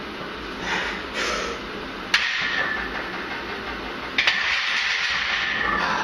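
Lifter straining through heavy barbell bench-press reps: sharp breaths, then two long forceful hissing exhales. Each exhale starts with a sharp clack, about two seconds in and again about four seconds in.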